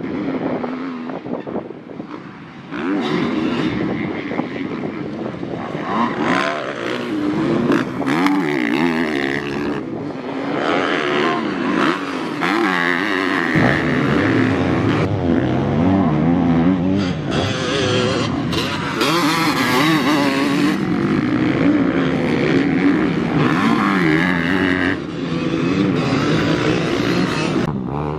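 Several motocross bikes' engines revving hard, their pitch rising and falling again and again as the riders work the throttle and shift gears. The sound gets louder about three seconds in.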